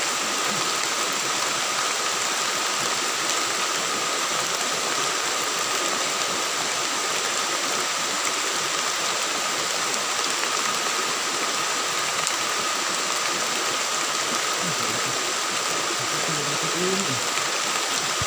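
Steady rushing of shallow stream water over rocks, with two thin, steady high tones above it.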